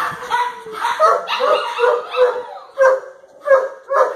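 Kennelled shelter dogs barking repeatedly, about two barks a second in the second half, after a drawn-out cry in the first second.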